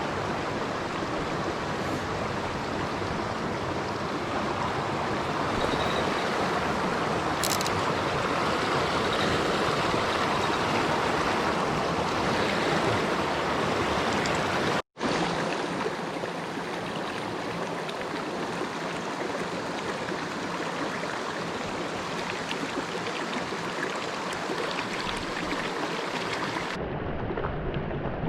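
Mountain stream water rushing steadily over rocks. There is a brief dropout about halfway through, and the sound turns duller near the end.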